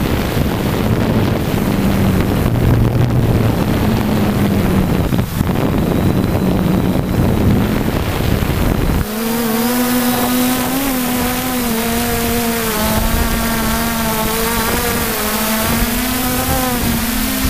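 3D Robotics Iris quadcopter's motors and propellers buzzing, heard from the camera it carries. Wind rumbles on the microphone at first; about halfway through it drops away and the motors' buzz stands out, its pitch wavering as the drone flies.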